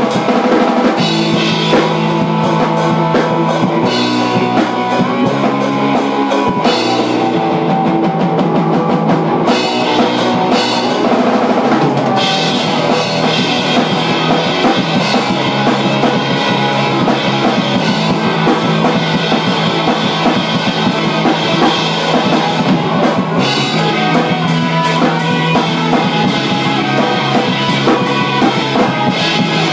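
Live rock band playing in the room: drum kit and guitars together, with no singing.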